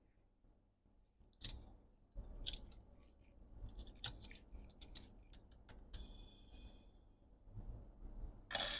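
Faint, scattered small clicks and taps of metal tweezers and parts being handled on a laptop's logic board and aluminium bottom case, with a short scraping rustle near the end.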